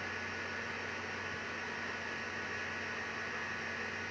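Steady low electrical hum with a faint even hiss: room tone, with no other sound standing out.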